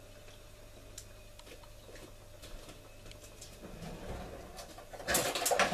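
Faint steady hum with a few soft clicks, then about five seconds in a burst of loud clattering of a metal utensil against a cooking pot.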